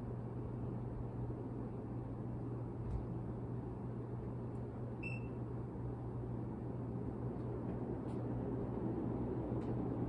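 Modern Forms Zephyr three-bladed ceiling fan running at a steady speed: an even airy whoosh of the blades with a low hum underneath.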